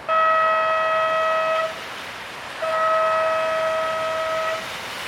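Surf contest hooter sounding two long, steady horn blasts, the second starting about a second after the first ends.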